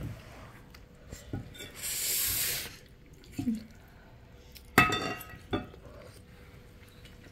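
Metal serving spoon clinking against a serving bowl and dinner plate as chicken pieces are dished up. The loudest is a sharp ringing clink about five seconds in, followed by a smaller knock; a short hiss comes about two seconds in.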